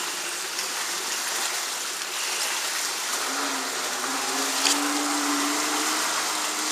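Steady hiss of water, then from about three seconds in the engine of a Yamaha Wave Venture 700 jet ski comes in as a steady drone that rises slightly in pitch as the craft speeds up.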